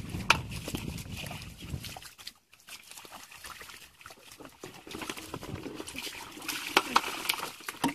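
Hands groping and digging in wet mud for fish: the mud and water squelch and splash, with a low rumble in the first two seconds and a cluster of sharp wet slaps near the end.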